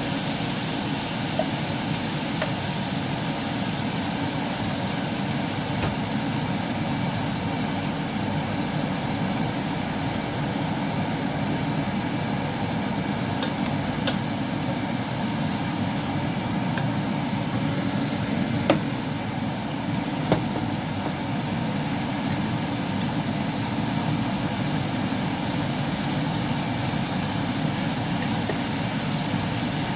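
Chicken fillet and asparagus sizzling steadily in a wok over a low hum, with a few sharp knocks of a wooden spatula against the pan.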